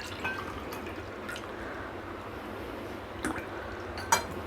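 Water poured from a cup into a frying pan, with dripping and a few light clinks, the sharpest one near the end.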